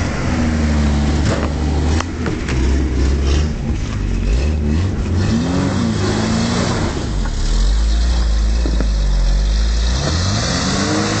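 Holden VH Commodore engine running and being revved, the pitch rising and falling in a couple of revs, about midway and again near the end, over a steady low engine note. A few sharp knocks and rattles in the first few seconds.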